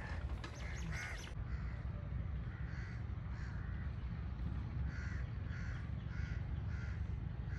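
Crows cawing in a steady, repeated series of short calls, about two a second.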